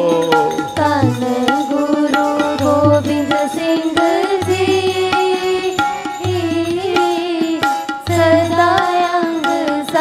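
Devotional music: a melodic singing voice with tabla beats over steady held notes.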